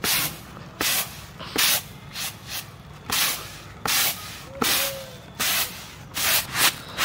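Broken rice being winnowed on a woven bamboo winnowing tray: a rhythmic series of short, grainy swishes, about one to two a second, as the grains are tossed and shaken across the tray.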